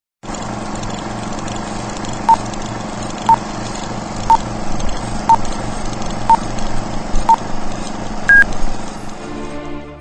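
Countdown-leader intro: a steady hiss with six short beeps a second apart, then a final higher-pitched beep, before music comes in near the end.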